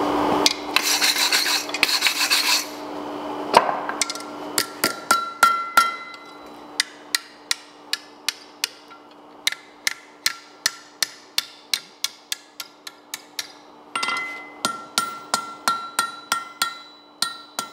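A hand hammer strikes red-hot steel bar on an anvil, bending it over the horn into a curved handle: a long run of sharp, ringing blows about two a second, with a brief pause a little before the end. A couple of seconds of scratchy scraping come first.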